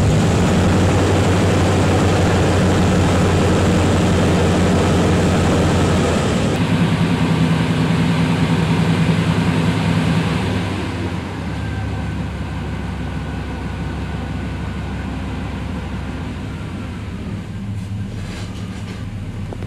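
GM pickup's engine and drivetrain running in gear up on jack stands at about 10 mph, a steady hum from the engine, transmission and spinning driveshaft as the NP241-C transfer case's pump is primed with fresh fluid. About ten seconds in it drops to a quieter idle as the wheels slow to a stop, with a few light clicks near the end.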